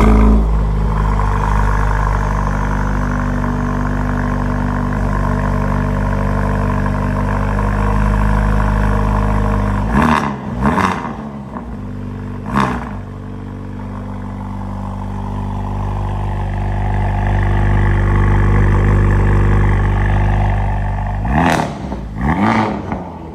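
Honda Civic Type R engine and exhaust running at a steady note, then blipped: two quick revs about ten seconds in and another soon after. The note swells slowly, and a few more sharp revs come near the end.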